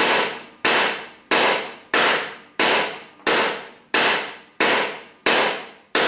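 Hammer tapping on a bolt threaded onto a seized Craftsman 42-inch mower deck spindle shaft: a steady series of sharp metal strikes, about one and a half a second, each ringing briefly. The shaft is being tapped down to drive it loose from its housing.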